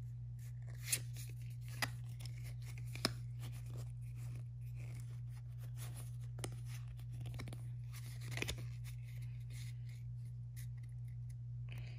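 Pokémon trading cards being handled in a small stack, cards slid and moved from the front to the back, with a few sharp card clicks, three in the first few seconds and a few more near the end. A steady low hum runs underneath.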